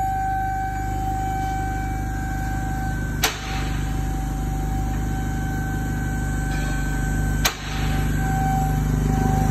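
2010 Chevrolet Malibu engine idling steadily, with a steady high whine over it and two sharp clicks, about three seconds in and near the end.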